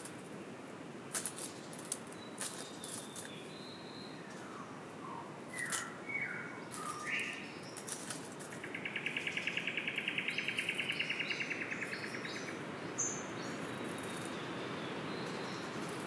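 Male satin bowerbird calling at its bower: a few short chirps, then a long rapid rattling buzz of about seven pulses a second lasting three to four seconds, the loudest sound here. Scattered sharp clicks and rustles come earlier, over a steady forest background hiss.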